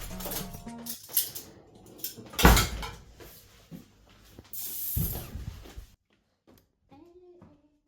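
Household handling noises in a small room: scattered knocks and clatter, one heavy thump about two and a half seconds in, and a short rush of rustling around five seconds in. The sound cuts off abruptly about six seconds in, after which only a faint voice is heard.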